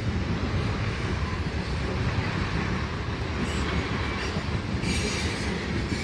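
Train rolling past on the rails: a steady low rumble of wheels on track, with brief high-pitched wheel squeals about three and a half and five seconds in.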